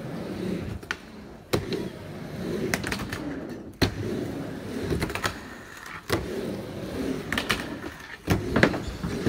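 Skateboard wheels rolling on a mini ramp, a steady low rumble that rises and falls as the board goes back and forth, broken by a sharp clack about every two seconds as the board turns at the top of each wall.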